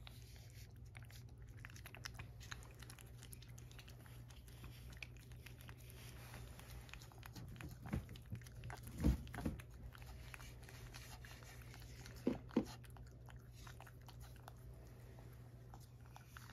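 A cat licking and lapping a wet treat paste from a saucer: a steady run of small, quick, wet clicks, with a few louder soft bumps about eight, nine and twelve seconds in, over a low steady hum.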